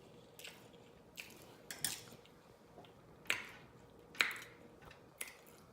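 Close-up eating mouth sounds: about half a dozen wet lip smacks and chewing clicks, roughly a second apart, the loudest two a little after three and four seconds in.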